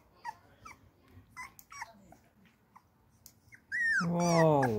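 Beagle puppy whimpering in short, faint high whines while its claws are clipped, then a loud, falling cry near the end.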